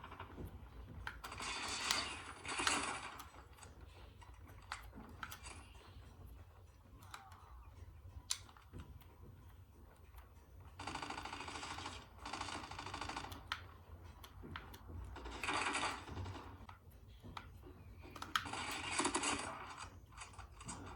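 Scattered light clicks, with several rustling or scraping noises lasting about one to three seconds each.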